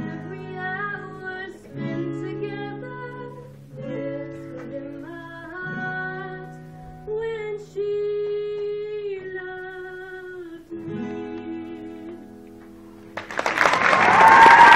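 A female voice singing the slow closing lines of a ballad over acoustic guitar. Near the end the audience breaks into loud cheering and applause.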